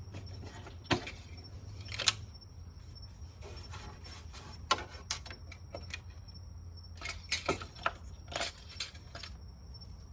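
Scattered sharp clicks and light metallic taps of an engine oil dipstick being pulled out of its tube, handled and pushed back in to recheck the oil level, over a faint steady low hum.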